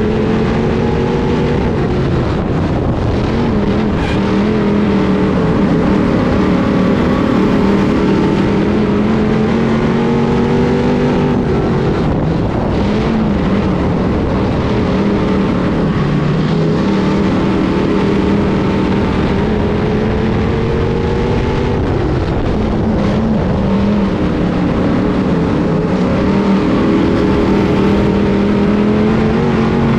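Heard from inside the cockpit of a 602 Sportsman dirt modified at racing speed: its GM 602 crate V8 runs hard, the pitch climbing down each straight and dropping briefly as the driver lifts for the turns, several times over.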